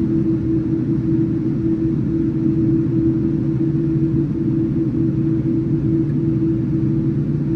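Cabin noise inside a Boeing 787-9 on the ground before takeoff, heard from a window seat: a steady low rumble with a constant hum, the engines running at low power.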